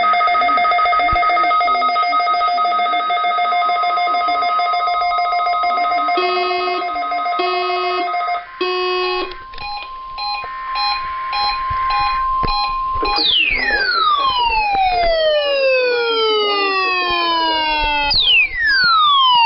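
Layered electronic tones: several steady tones held together, then short repeated beeps, then a string of overlapping tones gliding down from high to low, starting over once near the end.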